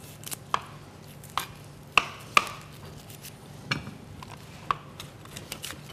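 Knife chopping fresh herbs on a cutting board: about ten scattered sharp knocks at an irregular pace, a few with a short ring.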